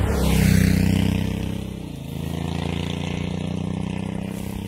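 Honda CRF1100 Africa Twin's parallel-twin engine passing close by through its stock exhaust, loudest about half a second in. The engine note dips briefly about two seconds in, then carries on as the bike pulls away. The owner says this stock exhaust keeps getting louder with mileage.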